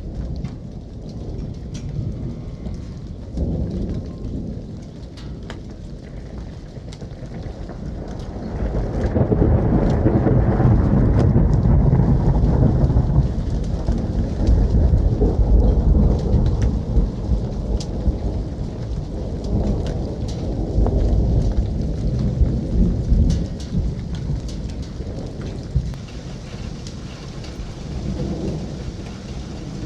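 Thunderstorm recording: steady rain falling, with a long rolling thunder rumble that builds about a third of the way in, peaks, and fades away near the end.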